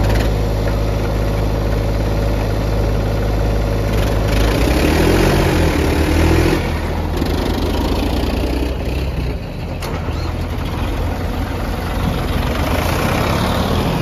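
Diesel engines of farm tractors and a JCB backhoe loader running close by, steady at first. About five seconds in, an engine revs up with a rising, wavering pitch, and the engine sound stays rougher after that.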